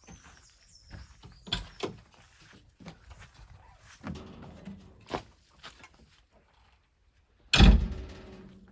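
A series of irregular knocks and thuds, with one loud heavy thump about seven and a half seconds in that dies away over a second.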